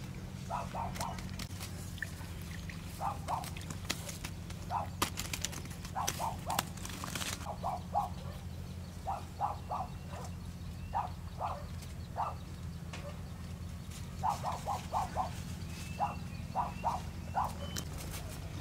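Short animal calls in quick groups of two to four, repeating every second or two, over a steady low hum.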